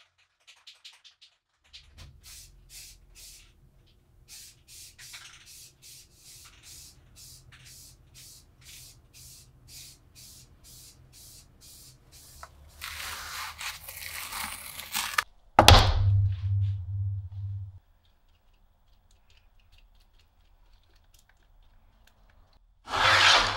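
Rust-Oleum gloss enamel aerosol can being shaken, its mixing ball rattling about two times a second, then a long steady hiss of spray paint. A loud thunk follows, and a short loud rush of noise comes near the end.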